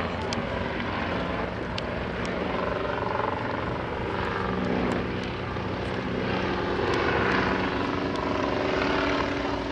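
Piston engine and propeller of a World War One replica biplane droning overhead, the pitch shifting as it flies past and the sound growing a little louder in the second half.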